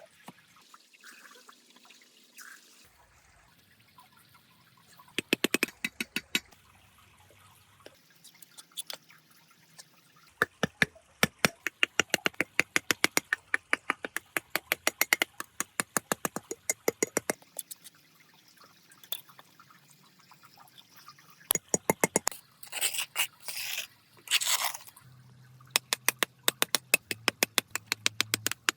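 Runs of rapid small taps or clicks, several a second, coming in bursts of a few seconds with short pauses between.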